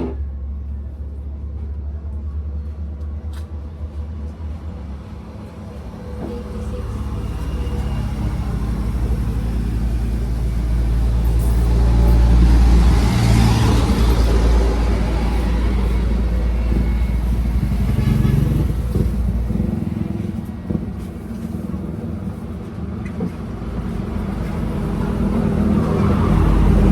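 A motor vehicle running close by, with a heavy low rumble that grows louder to a peak about halfway through, eases off, then rises again near the end.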